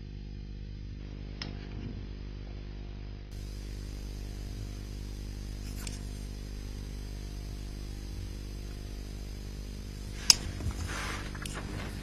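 Steady low electrical hum and hiss of the recording, with a few faint clicks and a sharper click about ten seconds in, followed by brief light rustling.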